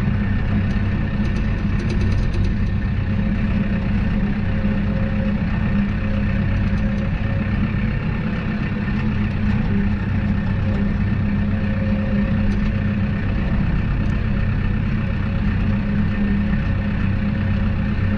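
Case 1090 tractor's diesel engine running steadily at constant revs, a continuous low drone.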